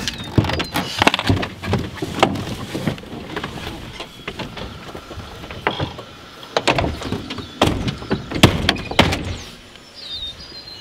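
Clicks and knocks of someone climbing out of a pickup truck and working its door, with a cluster of loud knocks about two-thirds of the way through.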